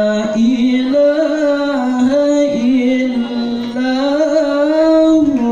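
A male qari's voice chanting the Quran in melodic tilawah style: one long, ornamented phrase, its pitch winding up and down.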